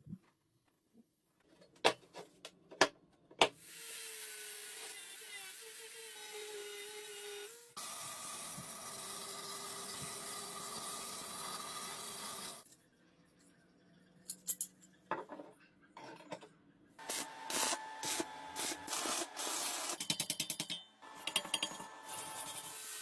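Workshop tool sounds from working on a rusty old lawn mower. A few sharp knocks come first, then two long stretches of steady scraping or grinding. After a short lull there are more knocks and a fast run of clicks.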